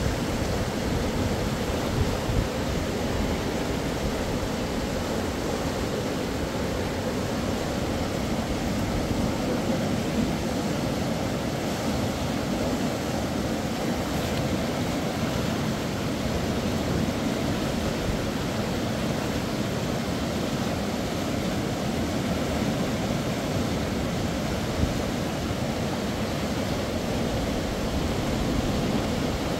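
Steady rush of river water, an even noise that holds at one level without a break.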